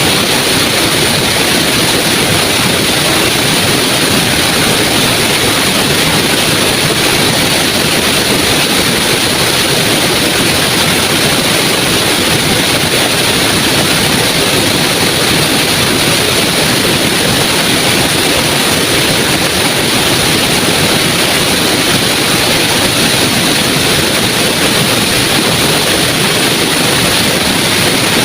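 Small waterfall rushing: a steady, loud rush of falling water.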